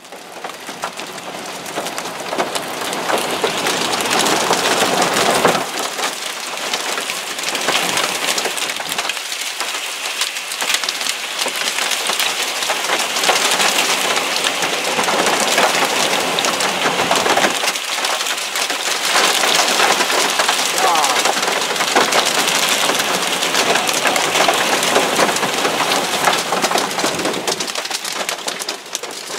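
Heavy rain and small hailstones, BB- to pea-sized, falling and striking surfaces as a dense, steady hiss of countless small impacts. It builds up over the first few seconds. Wind gusts rumble on the microphone at times.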